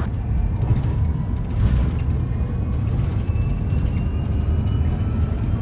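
Steady low rumble of a river cruise boat's engine running underway, with a faint thin tone slowly rising in pitch over the latter half.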